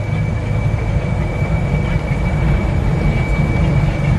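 Mitsubishi Canter 125 PS bus's diesel engine running steadily under way, heard from inside the cabin, a deep even rumble with a thin, steady high whine over it.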